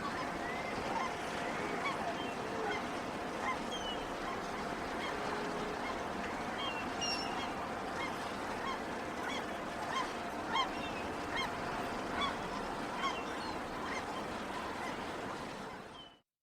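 Fishing-port ambience: many gulls calling in short, overlapping cries over a steady background din of the harbour. It fades out near the end.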